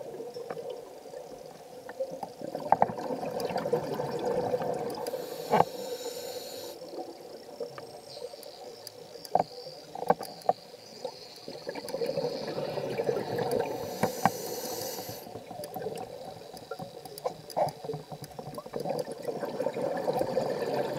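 Underwater sound of a scuba diver breathing through a regulator: slow breaths about every ten seconds, each with a hiss and a swell of bubbling, with scattered sharp clicks between.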